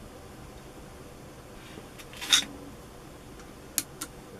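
Small handling noises of screws being fitted to fasten an AK47 CO2 BB gun's buttstock to its receiver: a short scrape about two seconds in, then two sharp clicks near the end.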